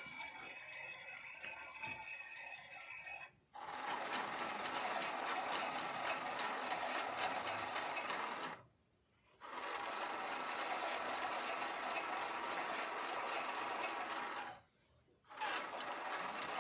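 Toy Miele washing machine's small electric motor running its drum, a steady whirring rattle of plastic gears that stops briefly three times during the wash cycle.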